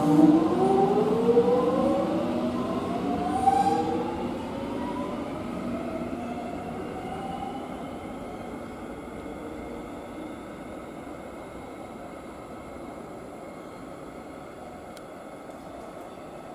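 Electric suburban train pulling away: its traction motors whine in several tones that rise steadily in pitch as it accelerates. The whine fades as the train leaves, with a few short clanks in the first few seconds.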